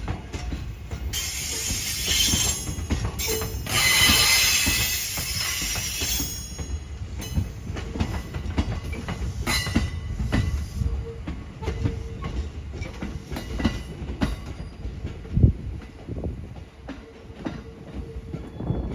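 A train running by on the rails, its wheels clattering with many knocks over the track, and a loud high hiss during the first few seconds.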